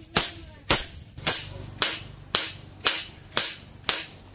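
Steady hand-hammer blows on a steel machete blade lying on a post anvil, about two a second. Each blow is a sharp metallic clang with a brief high ring.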